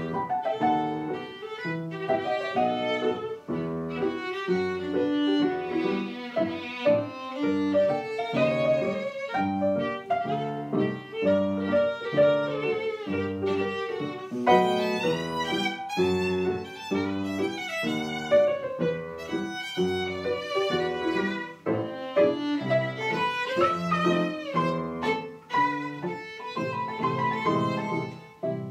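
Violin and grand piano playing a rag together: the bowed violin carries the melody in quick, short notes over the piano's accompaniment.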